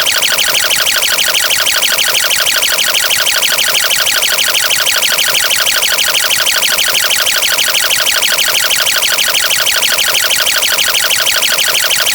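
Loud, harsh electronic buzzing made of very fast, evenly repeating pulses, like a sped-up looped digital sound effect.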